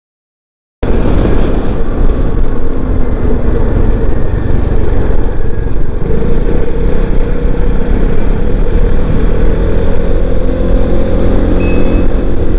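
Motorcycle riding at speed: wind rushing over the microphone with the engine's hum underneath, the engine pitch climbing slowly in the second half. The sound cuts in suddenly after a moment of silence at the start.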